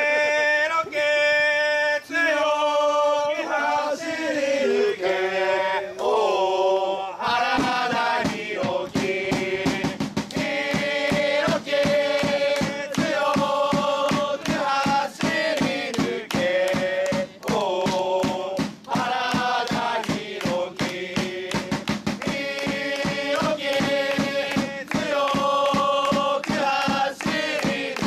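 Football supporters singing a player's chant together. The first seven seconds or so are sung without accompaniment; then a steady fast beat joins in under the singing.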